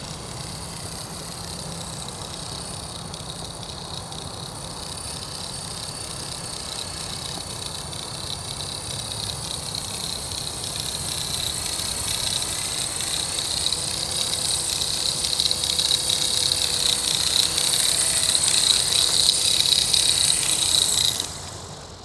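Accurate 400 RC helicopter's motor and rotor whine. It is high-pitched and grows louder as the helicopter comes closer and descends, then drops away sharply about a second before the end as it sets down. The helicopter has crash damage that gives it an abnormal noise and vibration.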